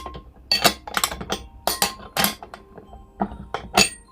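Irregular clicks and metallic clinks of industrial caster parts (wheel, bracket, top plate) being handled and fitted together by hand, over background music.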